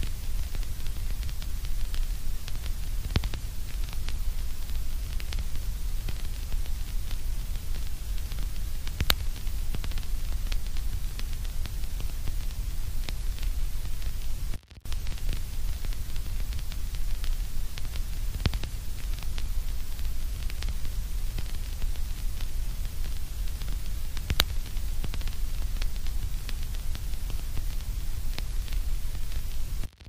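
Steady white-noise track: a low rumble under a thin hiss, flecked with small crackles. It drops out for a moment about halfway through.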